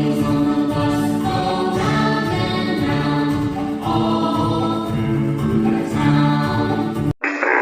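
Children's nursery-rhyme song: sung vocals over backing music with a steady beat. A little after seven seconds it cuts abruptly to a thinner, tinny-sounding recording.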